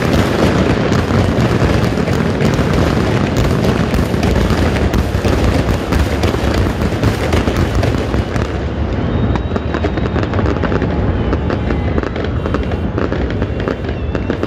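Fireworks display: a dense, continuous barrage of booms and crackling that thins after about eight seconds into scattered separate cracks as the show dies down.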